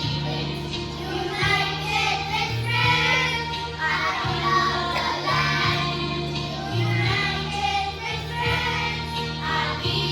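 Children singing together over instrumental music, with a bass line that holds each note and steps between a few notes.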